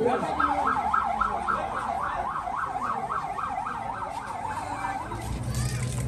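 Ambulance siren in a fast yelp, rising and falling about three to four times a second, fading out about four and a half seconds in. A low rumble comes up near the end.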